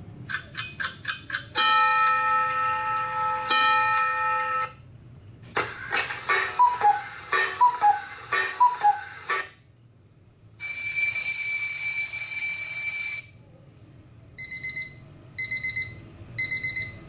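A run of clock sounds played back through a tablet's speaker: a few quick ticks, a steady ringing alarm for about three seconds, then a cuckoo clock calling its falling two-note "cuck-oo" several times amid clicks. Next comes a steady electronic buzz for a few seconds, and near the end a digital alarm clock beeping in short bursts.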